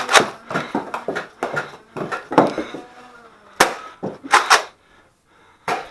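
Foam-dart blasters clacking in a Nerf battle. A rapid run of sharp clacks and knocks fills the first three seconds, followed by a few single clacks.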